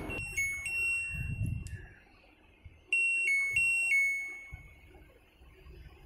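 LG WF-T7012EN top-loading washing machine's control panel beeping its error alarm: a short electronic tune of alternating high notes, played twice, the second time starting about three seconds in. It signals the dE (lid/door) error, which the repairer puts down to a door magnet ruined by rust.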